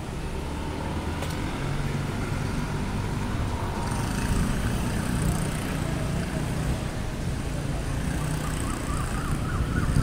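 Steady rumble of city road traffic, cars and motorbikes running and passing at a junction, a little louder after about two seconds.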